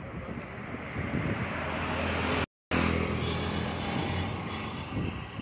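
A motor vehicle engine running steadily, growing louder toward the middle and then slowly fading, with the sound cutting out for an instant about halfway.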